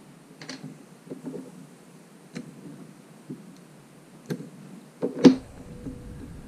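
Scattered light clicks and taps of an adjustable wrench and small metal parts as the posts holding down a circuit board are worked loose, with one louder knock about five seconds in.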